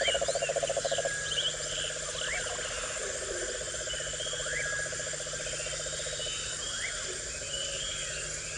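Chorus of frogs and insects: a fast pulsing trill, loudest in the first second and a half, over a steady high insect buzz, with short rising chirps every couple of seconds. It cuts off suddenly at the end.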